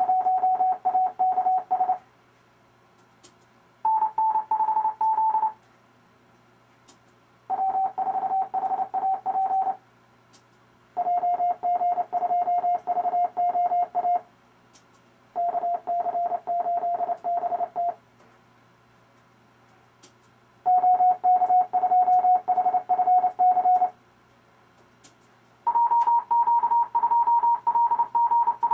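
Computer-generated Morse code from the RufzXP practice program: amateur radio callsigns sent one after another as short runs of rapidly keyed beeps, each callsign at a slightly different pitch, with pauses of one to two seconds between them. Faint clicks sound in some of the pauses.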